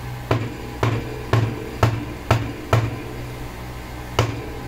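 Sharp knocks on a vape pod's metal casing, struck with a screwdriver handle while the pod is being taken apart. About two knocks a second, six in a row, then a pause and two more, over a steady low hum.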